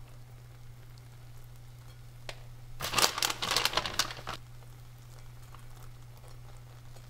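A burst of crackling and rustling, about a second and a half long near the middle, as shredded cheese is sprinkled over egg cooking in a frying pan, over a steady low hum.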